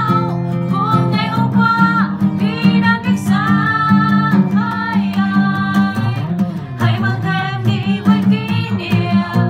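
Capoed acoustic guitar strummed steadily in chords, with a singing voice carrying the melody over it in held phrases.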